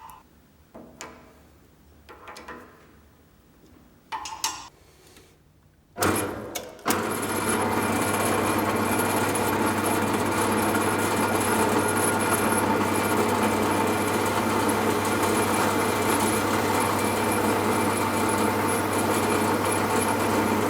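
A few short handling knocks and rattles, then a small electric power tool switches on about six seconds in and runs steadily with an even hum.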